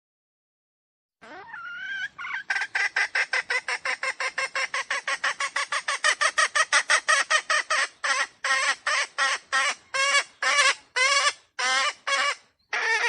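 Red junglefowl calling in a long run of short repeated notes, starting about a second in at about six a second, then slowing to about two a second for the last few seconds.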